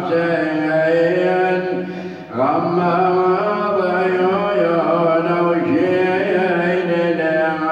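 A man chanting a Shia nawha (lament) in Arabic into a handheld microphone: a solo voice holding long, slowly bending melodic lines, with a short break for breath about two seconds in.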